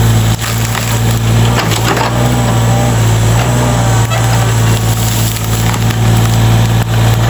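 Excavator engine running steadily under load while it knocks over and uproots a small tree, with wood cracking and splintering throughout.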